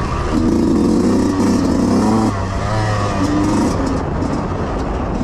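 Yamaha YZ125X two-stroke dirt bike engine revving hard under throttle. It surges about half a second in, drops back near two seconds, and picks up again in uneven bursts as the throttle is worked over the course.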